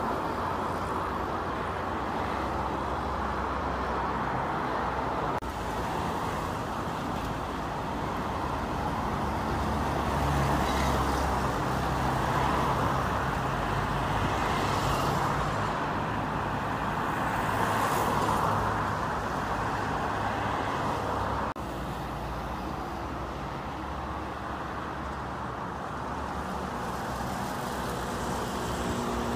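Road traffic: cars and a bus passing, engine rumble and tyre noise swelling as vehicles go by, loudest about ten and eighteen seconds in.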